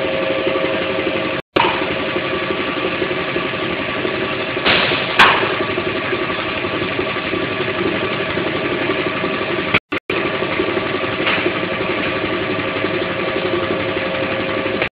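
Production-line machinery running with a steady mechanical hum made of several fixed tones. A sharp clack or clatter sounds about five seconds in. The hum breaks off into short silent gaps about a second and a half in and again just before ten seconds.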